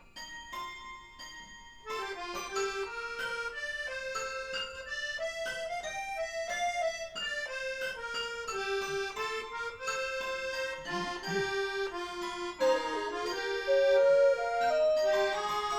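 Instrumental music: a few sparse plinked notes, then from about two seconds in a melody of held notes over chords that grows louder toward the end.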